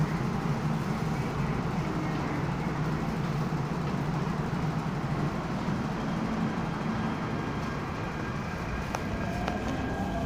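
MTR K-stock electric train departing an underground platform: a steady low hum and rumble as it starts to roll, then near the end a whine rising in pitch as the traction motors accelerate it away.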